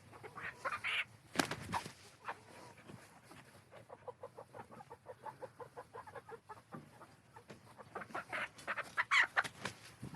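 Pullets squawking and clucking as they are handled and put into a chicken tractor, with a quick run of clucks in the middle and louder squawks near the end. A loud knock comes about a second and a half in.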